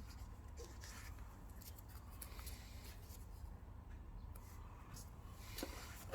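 Faint rustling and light handling of paper booklets, a few soft scattered clicks and rubs over a steady low hum.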